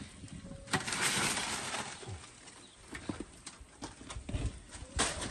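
Scattered knocks and clatters, with a short hissing rush about a second in and a louder knock near the end.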